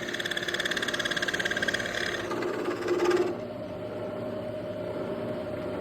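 Milling machine cutting metal as it enlarges a bolt hole: a fast, even chatter for about three seconds that stops sharply, after which the spindle runs on with a steady hum.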